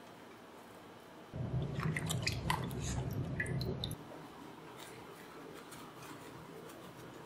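Sliced onion being pushed and scraped across a plate with a knife blade and fingers: a short stretch of soft, moist rustling with small crisp clicks, starting about a second in and stopping about four seconds in.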